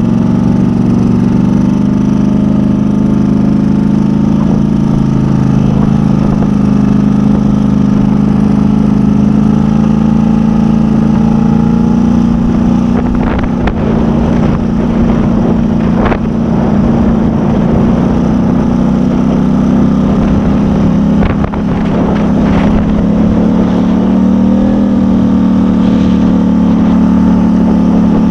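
2010 Polaris Sportsman 850 XP ATV's 850 cc twin-cylinder engine running steadily and loudly, its exhaust pipe loose and falling off so it sounds close to straight-piped. A few sharp knocks or rattles come in the second half.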